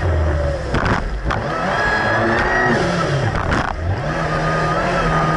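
Kawasaki Ultra 300X jet ski's supercharged four-cylinder engine running hard, its pitch dropping and climbing again several times as the craft rides over rough waves. Spray hisses throughout, and the hull slams on the water about a second in and again about three and a half seconds in.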